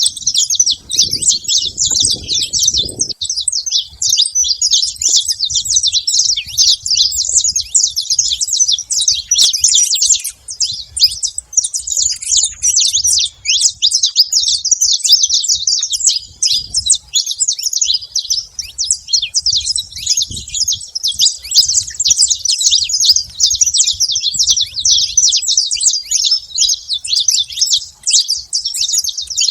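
Saffron finch (canário-da-terra) calling and singing without a break: a dense stream of rapid, high chirping notes.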